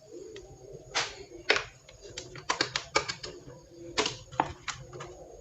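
Keys pressed on a mechanical keyboard fitted with Outemu silent switches: irregular, separate clicks and taps, about a dozen.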